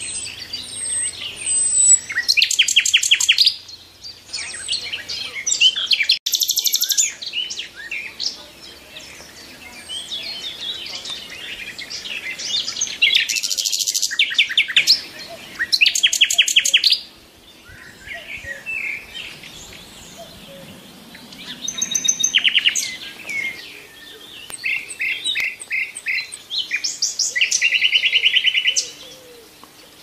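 Several wild birds singing and calling together: a mix of chirps and whistles, broken by loud rapid trills of fast repeated notes lasting one to two seconds, about five times.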